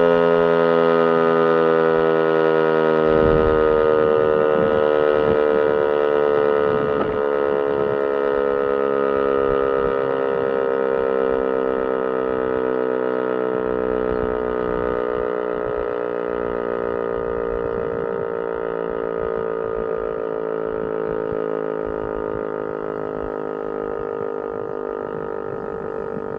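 DS977 motor civil-defence siren winding down: its single held tone slowly falls in pitch and fades.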